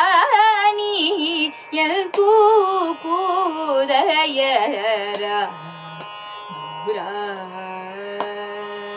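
Solo female voice singing a Carnatic melody on vowels, with rapid wavering gamaka ornaments, over a steady drone. After about five seconds the singing drops lower and quieter, settling into long held notes.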